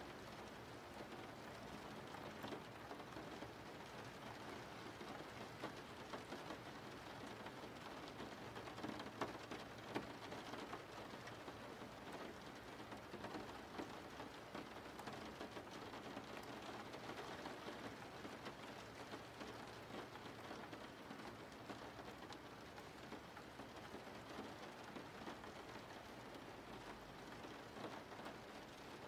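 Steady, faint rain falling, with a couple of sharper ticks about nine and ten seconds in.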